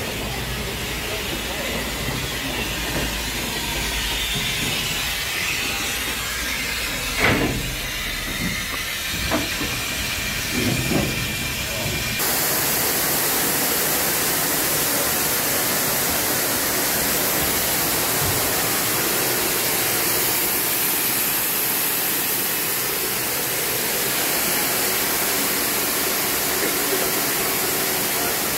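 Steam locomotive sounds: a few sharp clanks between about 7 and 11 seconds in. After an abrupt cut about 12 seconds in comes a loud, steady hiss of escaping steam.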